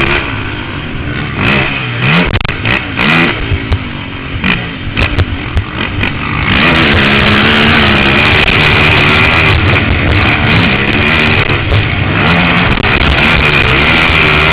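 Can-Am DS450 quad's single-cylinder four-stroke engine revving up and down through the gears. About halfway through it turns louder and steadier, held at high revs.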